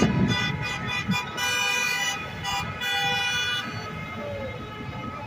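Car horns honking from passing traffic: several held horn blasts at different pitches overlapping, loudest around two and three seconds in, with a brief low thump at the start.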